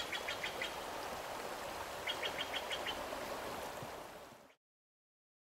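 Steady rush of flowing river water with a small bird giving two quick series of about six chirps, near the start and about two seconds in; the sound fades out and stops about four and a half seconds in.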